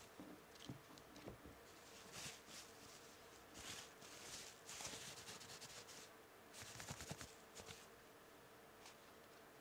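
Thin tissue-paper wrapping rustling and crinkling in short, faint bursts as it is unfolded by hand, with a few light knocks from handling.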